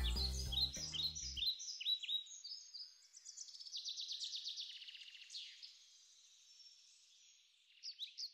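Background music ends about a second and a half in, followed by small birds chirping: quick high chirps and a fast trill, with a few last chirps near the end.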